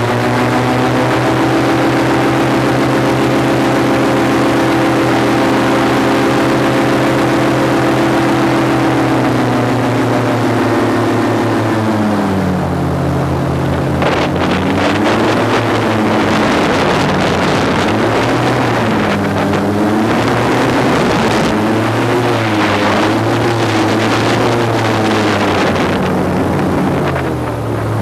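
Airboat engine and propeller running at high throttle with a steady drone. About twelve seconds in the pitch drops, then rises and falls again and again as the engine speed changes.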